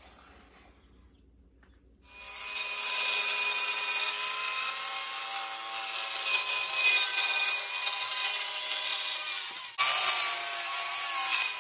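Compact corded circular saw cutting through a plywood sheet, its motor whine steady through the cut. It starts about two seconds in, after near quiet, stops briefly near the end and starts again.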